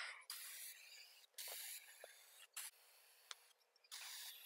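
Aerosol can of touch-up spray paint hissing in four short bursts, each about half a second long with pauses between, as light coats of dark blue go onto a truck's roll pan. A brief click comes right at the start.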